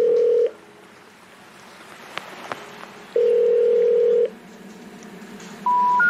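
Telephone call-progress tones: two long steady ringing tones about three seconds apart, then the three short rising beeps of a special information tone, the intercept signal that comes before a 'number cannot be reached' recording.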